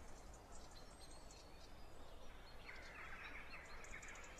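Faint outdoor ambience with birds chirping; the chirping thickens about halfway through.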